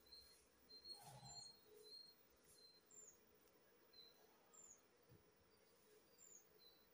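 Near silence: faint, short bird chirps repeating in the background, with a soft knock about a second in.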